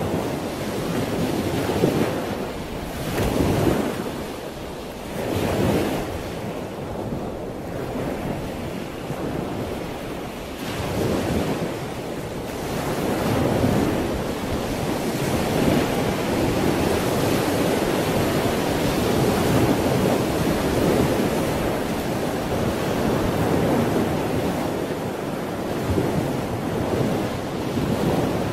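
Ocean surf washing in: a steady rush of waves that swells and ebbs every few seconds.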